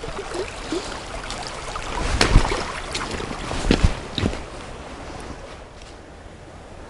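Shallow creek water rushing over a stony bed, with footsteps on leaf litter and gravel along its edge; a few louder steps about two, three and a half and four seconds in.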